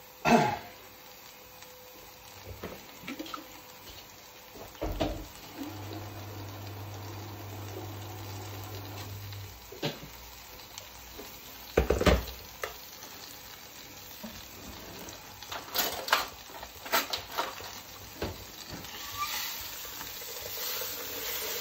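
Butter with garlic and shallot sizzling gently in a stainless steel sauté pan, with a few scattered knocks and clinks. Near the end a utensil stirs the pan, clattering against the metal.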